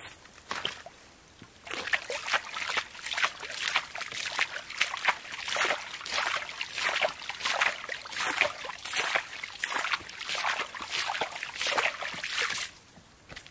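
Hands splashing and sloshing shallow lake water in quick, irregular strokes, washing the mud off a freshly dug bamboo root clump. The splashing starts about two seconds in and stops shortly before the end.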